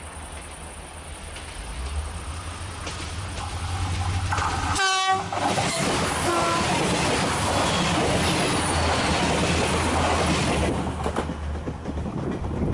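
A diesel TER multiple unit approaching and sounding its horn in short blasts about four and a half to six and a half seconds in, then passing close by with engine and wheels rumbling loudly before it dies away near the end.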